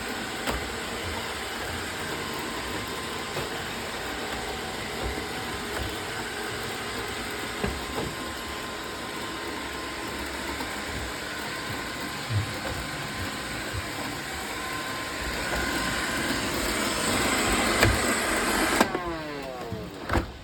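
Roomba robot vacuums running: a steady whirring hum with a few short knocks. It grows louder toward the end, then drops off suddenly, followed by a brief falling whine.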